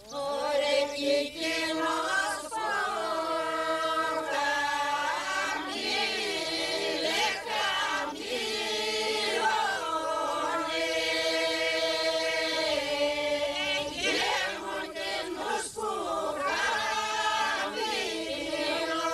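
A group of voices singing a traditional Greek folk song without instruments, in long held notes that slide between pitches.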